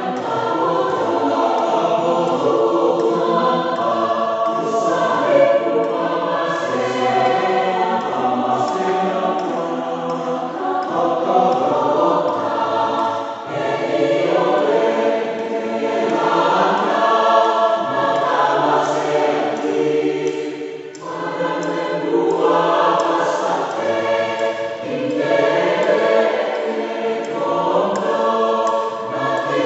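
A mixed choir of men and women singing together in parts, with one short break between phrases about two-thirds of the way through.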